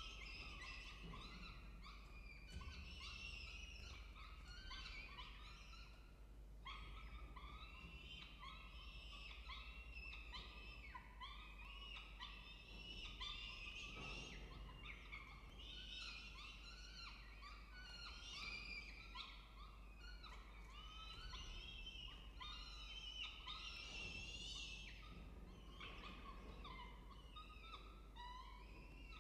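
Peregrine falcon chicks begging as a parent feeds them: a continuous stream of short, high, chirping calls, several a second.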